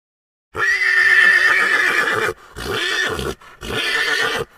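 Horse whinnying: one long neigh starting about half a second in, followed by two shorter calls.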